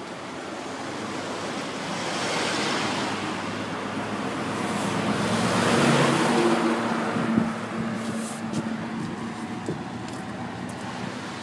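Road traffic passing close by: vehicles driving past with a rising and falling rush of tyre and engine noise, swelling twice, about two and a half and six seconds in, the second pass carrying a steady engine hum.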